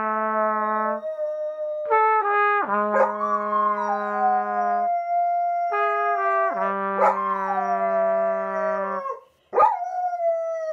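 Golden retriever howling along to music of long held brass-like notes, its howl rising and falling in pitch over the steady notes. The notes come in three long phrases with short gaps between them, and the sound cuts out briefly near the end before the howl picks up again.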